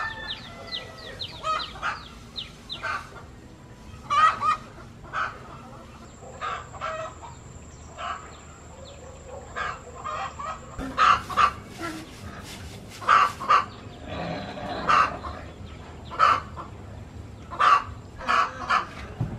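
Chickens clucking in short, repeated calls throughout, with one longer call about fifteen seconds in and thin high chirps near the start.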